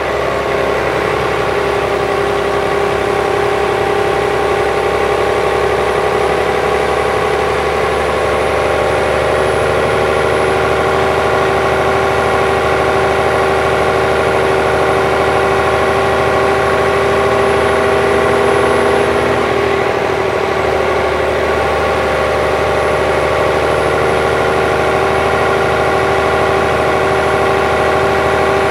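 Volvo B12B coach's DH12E 12-litre six-cylinder diesel idling steadily, with a faint high whine over it. The engine note wavers briefly about two-thirds of the way through, then settles again.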